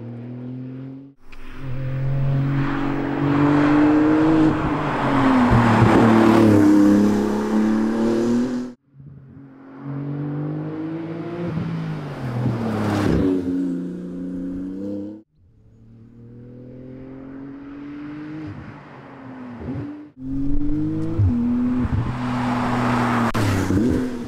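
Porsche 911 GT2 RS's 3.8-litre twin-turbo flat-six heard from outside as the car drives by, revving up and dropping in pitch through gear changes and lifts. It comes in several short takes, each cut off abruptly.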